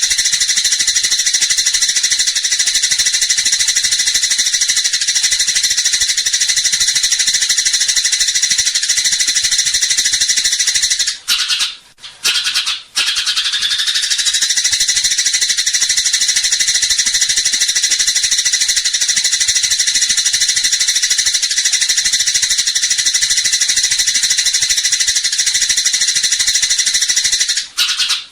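Eurasian tree sparrows giving a dense, unbroken stream of high, buzzy fighting chatter. It breaks off for a moment about 11 seconds in and again near the end.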